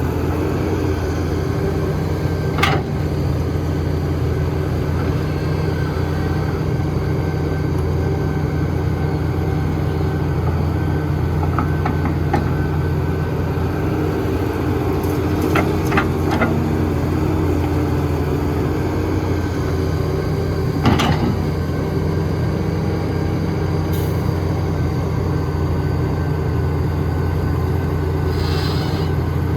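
Heavy diesel engine of construction machinery running steadily, with a few sharp knocks, the loudest about two-thirds of the way in.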